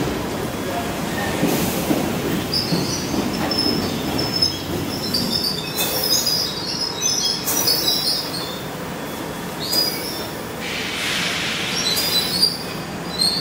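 London Underground Piccadilly line 1973 Tube Stock train running into the platform and slowing, with a steady rumble and wheels squealing in scattered high tones. There are several short bursts of hiss, the biggest about ten seconds in.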